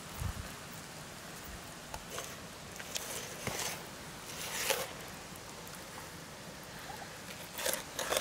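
Knife cutting a catfish fillet away from the backbone on a wooden cutting board: a few short, wet scraping sounds, the loudest about four and a half seconds in.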